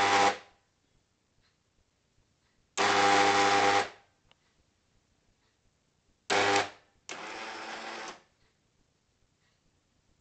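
AEG CaFamosa fully automatic coffee machine giving off short bursts of loud mechanical buzzing and rattling, four times, the last one quieter. This is the odd noise it makes when switching on and dispensing; it sounds like a slipping pinion, but according to the owner it isn't.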